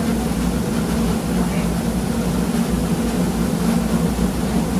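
Compact rice milling machine running with a steady mechanical drone.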